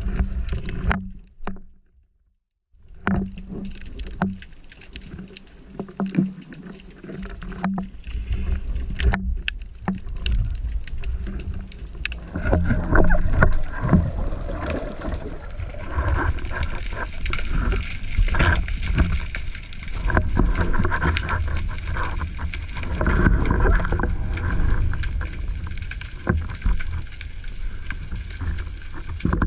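Underwater sound through a GoPro's waterproof housing as a freediver swims down over a rocky reef: a low, uneven rumble of water moving past the housing with scattered clicks and crackles. It cuts out briefly about two seconds in.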